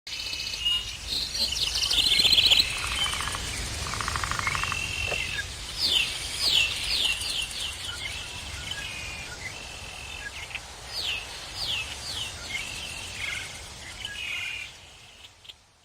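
Birdsong: several birds chirping and trilling, with runs of quick falling notes, over a low steady background rumble; it fades out near the end.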